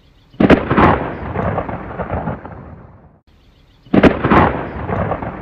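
Thunderclap sound effect played twice, about three and a half seconds apart: each a sudden sharp crack followed by a rolling rumble that fades away.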